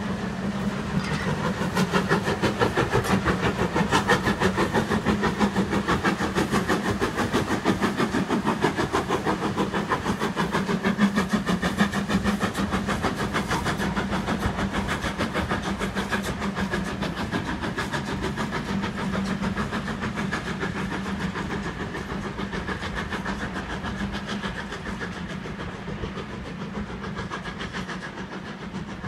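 Steam locomotive passing with a train of coaches, its exhaust beating in a fast, even rhythm, loudest in the first half and slowly fading as it draws away.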